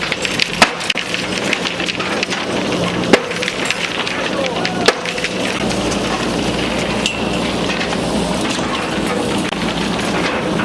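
Wood and debris cracking and splintering in a dense, continuous crackle during a demolition, with three sharper cracks in the first five seconds. A steady low hum joins about six seconds in.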